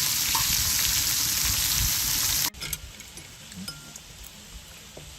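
Meat sizzling loudly on a cast-iron cauldron-lid grill over a wood fire, with a steady hiss that drops off abruptly about halfway through to a much quieter sizzle with faint scattered ticks.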